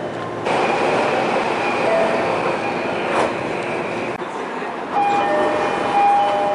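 JR East E231-series train door chime: a few seconds of steady rushing noise with a faint high tone, then about five seconds in the door chime starts sounding its repeating two-tone notes.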